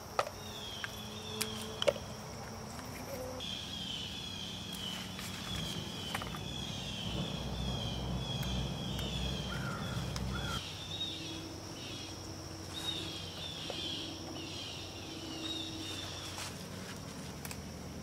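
Summer outdoor ambience: a steady high-pitched insect drone with a repeating pattern of short chirps. There is a low rumble through roughly the first ten seconds and a few sharp clicks in the first two seconds.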